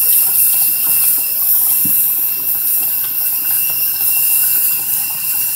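Tap water running steadily into a bathroom sink: an even hiss with a thin, steady high tone over it.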